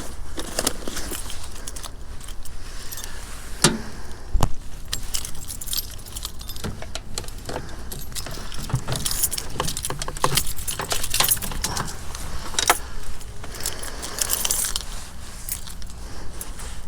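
Metallic jangling and rattling from a moving e-bike, like loose keys shaking, with a steady low hum of riding underneath. There are two sharper knocks about four seconds in.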